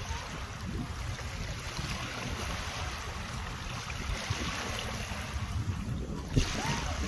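Small waves lapping onto a sandy shore, with wind buffeting the microphone. A short thump about six seconds in.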